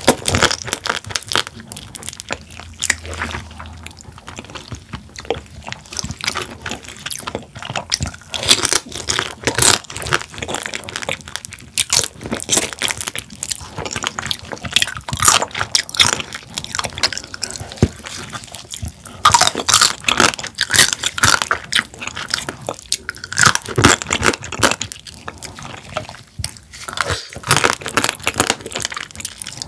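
Close-miked eating of spicy marinated raw crab: crab shell crunching and cracking under the teeth, with chewing, as a dense, irregular run of sharp crackles.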